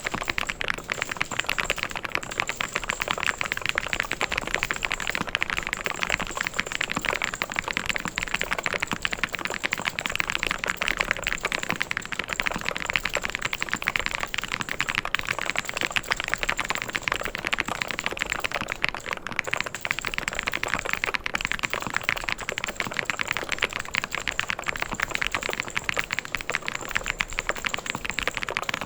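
Fast, continuous typing on a mechanical keyboard: a dense stream of key clicks and clacks with no pauses.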